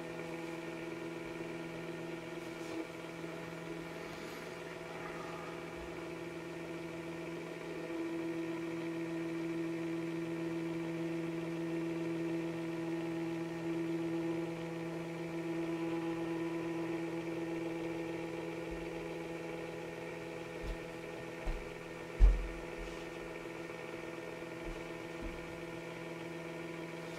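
Small electric motor of a rotating display turntable humming steadily, a low drone with several higher overtones. A single brief thump about 22 seconds in, with a couple of smaller knocks around it.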